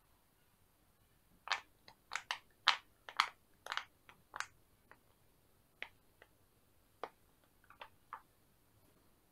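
Silicone pop-it fidget toys being handled on a silicone pop-it game board, giving short, sharp pops and clicks: a quick run of them about a second and a half in, then a few scattered ones.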